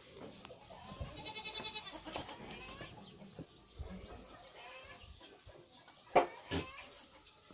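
Goat kids bleating, with a quavering bleat about a second in, and two sharp knocks about six seconds in that are louder than the bleats.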